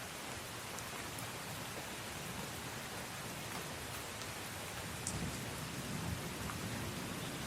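Steady rain falling, an even hiss with scattered sharp drop ticks. A low rumble of distant thunder swells about five seconds in and fades a second and a half later.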